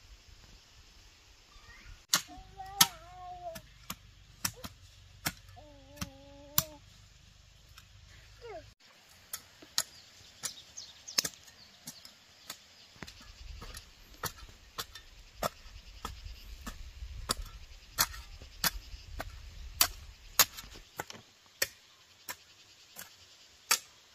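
Sharp tool strikes, roughly one a second and irregular, with two short wavering cries a few seconds in.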